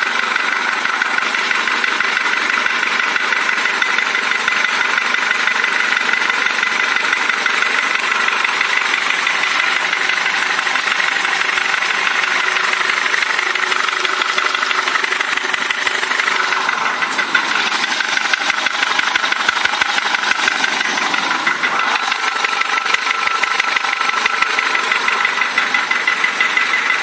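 Nissan GA16DE 1.6-litre four-cylinder engine running with a rapid, steady knock (стук) in time with the engine.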